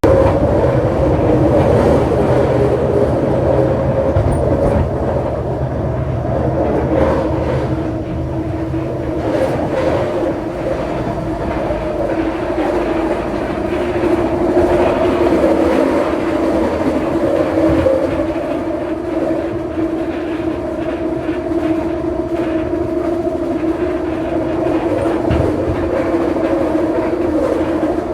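Scarborough RT light-metro train, driven by linear induction motors, running along the track as heard on board: a steady rumble with wheel clatter and a continuous hum at two pitches.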